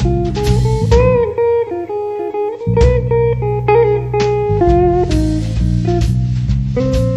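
Instrumental passage of a blues band recording: guitar notes, some bent in pitch about a second in, over bass guitar and brushed drums. The bass drops out for about a second and a half early in the passage, then comes back in.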